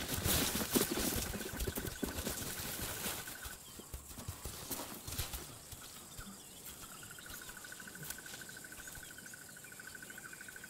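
Young lions running and scuffling in play through dry bush: a rush of footfalls, thuds and rustling for the first few seconds, then quieter. Behind it a steady, rapidly pulsing insect trill drops out for a few seconds and returns.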